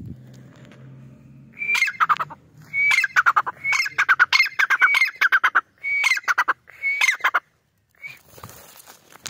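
White francolin (white teetar) calling. About a second and a half in, it starts a run of seven loud phrases of rapid repeated notes, one after another, then gives a short final note near the end. A faint low hum lies under the first second and a half.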